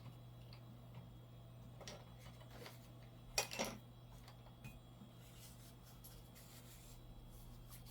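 Plastic coin tubes being handled on a table: a few scattered light clicks and taps, the loudest about three and a half seconds in, over a low steady electrical hum.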